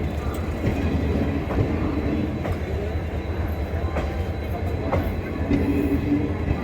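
Passenger train rolling past with a steady rumble of wheels on rail, and a sharp click every second or so as the wheels cross rail joints.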